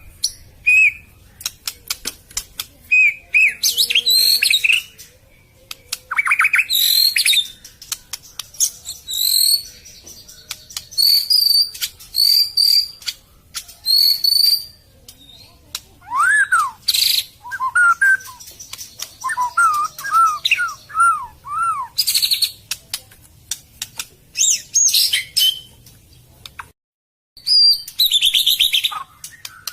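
White-rumped shama (murai batu) singing a varied song: quick whistled notes, rising and falling sweeps and clicky chattering phrases, broken by a brief full silence near the end.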